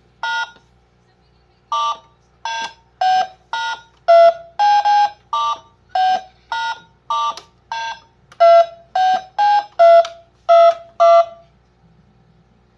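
Toy telephone's keypad buttons being pressed one after another. Each press gives a short electronic beep, about two a second, with the pitch changing from button to button. The beeps stop a little before the end.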